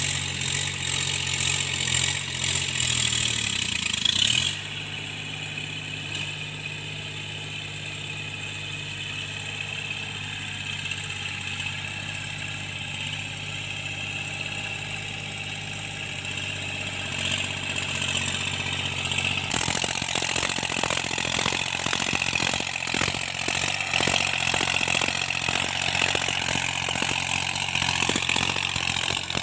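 Tractor engine running steadily while cultivating, its engine knock repaired. It drops to a quieter, smoother running sound about four seconds in, then comes back louder with rapid clattering from about twenty seconds in to the end.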